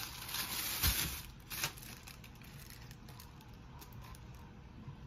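Thin plastic bag crinkling as it is handled, for about the first two seconds. After that, only a few faint clicks and taps.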